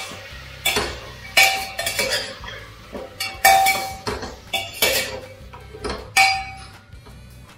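A metal spoon stirring chicken in a pressure cooker, knocking and scraping against the pot with short ringing clinks every half second to a second, quieter near the end.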